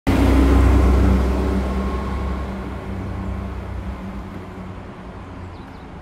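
A motor vehicle's engine running close by, loud at the start and fading steadily.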